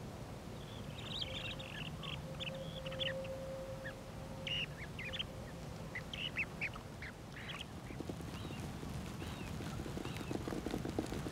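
Waterbirds calling in a flurry of short, high notes for several seconds, over a low steady hum. Near the end the calls give way to a run of rapid faint clicking.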